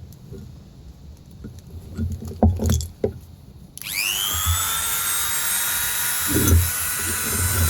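Knocks and handling thumps, then, about four seconds in, a power drill's electric motor spins up with a quick rising whine and settles into a steady high-pitched whine, in the drilling of a hole through a glazed ceramic pot.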